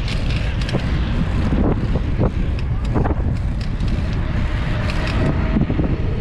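Wind rumbling on an action camera's microphone while riding a bicycle, mixed with road noise and scattered small clicks.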